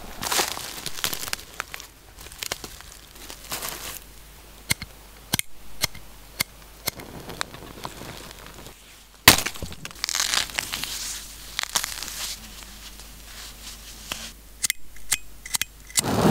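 Dry, fluffy plant-down tinder being pulled apart and handled: soft rustling and crinkling with scattered sharp clicks, and one loud snap about nine seconds in. Near the end come a few quick clicks from a lighter held over the heap of fluff.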